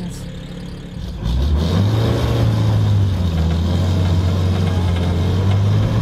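Willys Jeep engine idling, then about a second in it picks up as the Jeep pulls away and runs steadily as it drives along at low speed.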